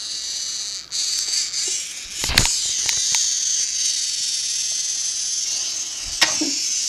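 Small battery-powered electric motor in a TrackMaster toy train drive unit running with a steady high-pitched whine, the battery fitted the wrong way round so the unit drives in reverse. Two sharper knocks come as the unit is handled, about two and a half and six seconds in.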